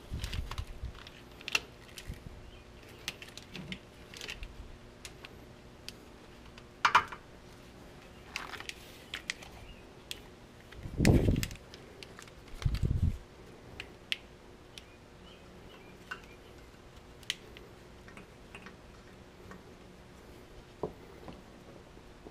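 Scattered light clicks and rattles of a trailer wiring harness and its plastic retaining clips being handled and pushed into holes in a Jeep's steel frame, with two dull thumps a couple of seconds apart near the middle.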